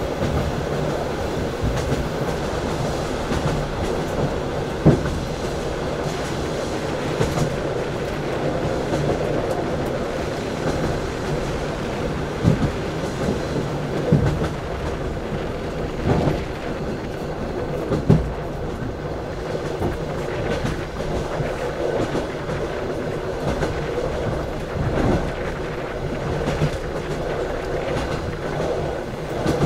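Passenger train carriages running along the track: a steady wheel-on-rail rumble with a few sharp, irregular clacks as the wheels run over rail joints.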